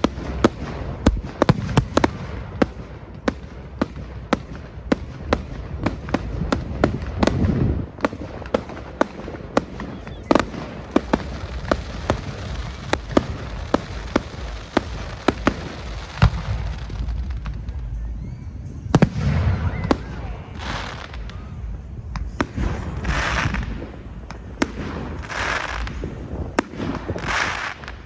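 Fireworks display: a steady run of sharp bangs and crackles, roughly one or two a second, over a constant low rumble. In the last third come four longer rushing bursts, about two and a half seconds apart.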